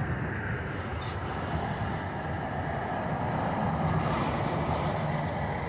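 Freight train of autorack cars rolling past: a steady rumble of wheels on rail, swelling slightly around the middle.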